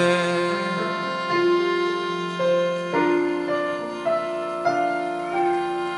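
Piano, accordion and fiddle playing a slow instrumental passage of a hymn, held chords changing every second or so.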